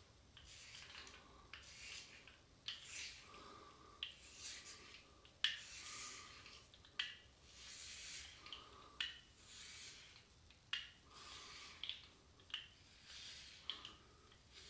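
HeadBlade S4 Moto manual razor scraping stubble through shaving cream on the scalp. It makes faint, short strokes, roughly one a second.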